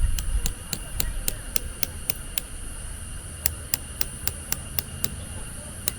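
Wind rumbling on the microphone under a steady high hiss, with a regular series of sharp ticks, about three or four a second, pausing briefly midway.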